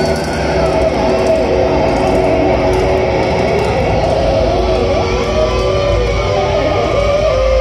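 Heavy metal band's distorted electric guitars played live and loud, holding sustained notes that slide and bend over a low rumble, with a wavering note near the end.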